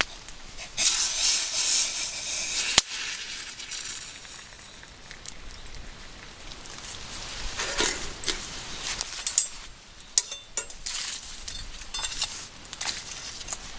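Wood campfire crackling with scattered pops, with a steady hiss for a couple of seconds near the start and a single sharp snap about three seconds in.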